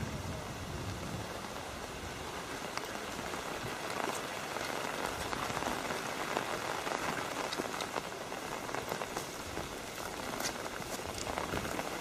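Steady rain falling, heard as an even hiss dotted with many small ticks of drops striking close by.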